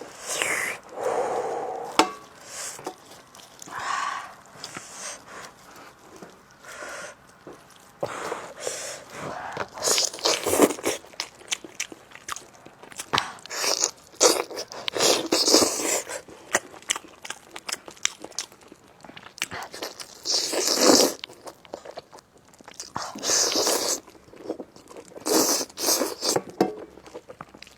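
Close-miked eating sounds: biting and chewing a fatty braised spicy lamb chop, in irregular bursts with sharp clicks.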